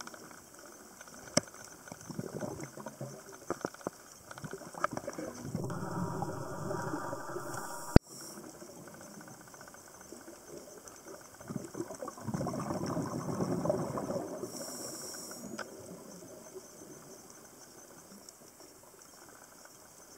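Underwater sound from a scuba diver's camera: the diver's exhaled regulator bubbles rush twice, with brief high hisses of breath through the regulator, over scattered small clicks and crackles. There is one sharp loud click about eight seconds in.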